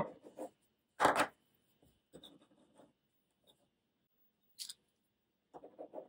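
A multi-tool pen's tip scratching faintly on paper as squiggly lines are drawn. There is a short, louder rustle about a second in and a brief sharp tick a little past halfway.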